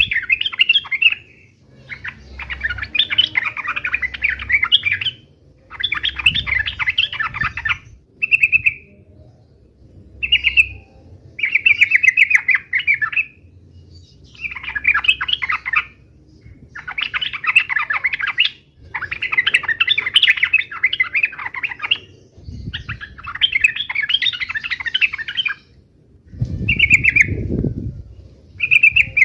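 Yellow-vented bulbul (trucuk) singing its loud chattering song in repeated phrases of two to three seconds, with a few short single calls between them. Low thuds come in twice in the second half.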